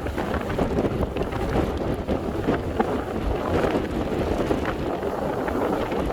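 Strong, gusty sea wind buffeting the microphone with a heavy rumble, over the wash of waves breaking against a harbour breakwater.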